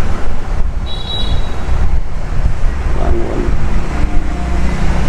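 Steady low rumble of background noise, with a brief high-pitched beep about a second in.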